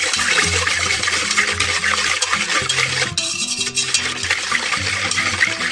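Wire whisk beating a thin cream-and-milk mixture in a steel bowl: a fast, continuous scratchy clatter of the wires against the metal and through the liquid.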